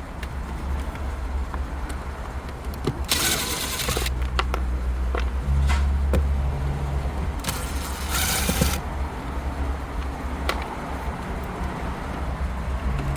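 Screws being taken out of plastic dash trim: two short whirring runs of a power screwdriver, about 3 and 8 seconds in, with scattered clicks and taps of plastic and loose screws over a steady low hum.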